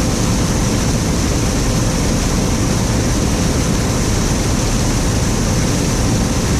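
John Deere 9500 combine running steadily while harvesting corn: a loud, even rumble and hiss that starts abruptly.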